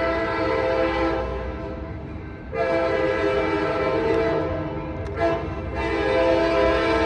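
Air horn of an F59PHI diesel locomotive sounding a chord of several notes in blasts: a long blast fading out, another long blast, a short toot, then a long blast that carries on. This is the long-long-short-long grade-crossing signal, with the train's low rumble beneath.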